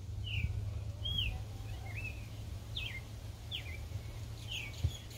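A bird calling over and over, short chirps about one a second, some sliding down in pitch and some rising and falling, over a steady low rumble. A single knock comes near the end.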